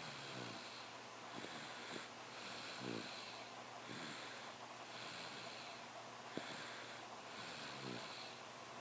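A person snoring: repeated breaths with a hiss, several carrying a low rattle.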